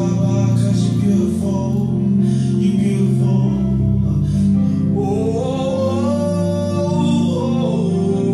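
A man singing a gospel song, accompanied by an electronic keyboard playing long held chords.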